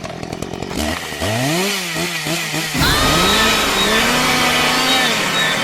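Chainsaw engine revving up and down, louder from about three seconds in.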